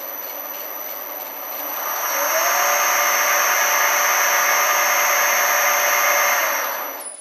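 Metal lathe spindle and chuck spinning, driven by an electric motor on a frequency converter, with a steady high-pitched whine. About two seconds in the speed is raised, from about 9 Hz to about 30 Hz on the drive, and the running gets louder with a short rising tone. Near the end it winds down.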